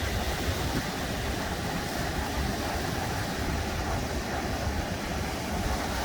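Sea surf washing steadily onto the shore, with wind buffeting the microphone in a low rumble.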